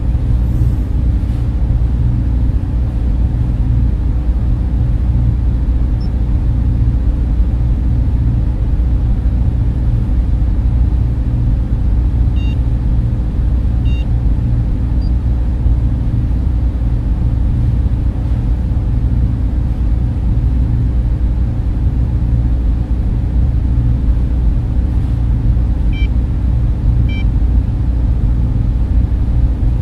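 Sci-fi spaceship interior ambience: a steady deep machinery rumble and hum. Faint short beeps come twice in pairs, about midway and again near the end.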